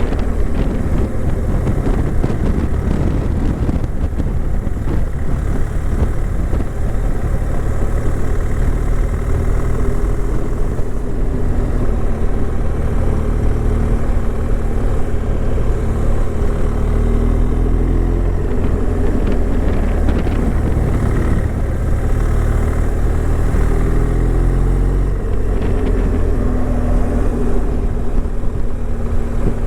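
A car being driven: steady engine and road rumble, with the engine's pitch rising and falling several times as the throttle and gears change.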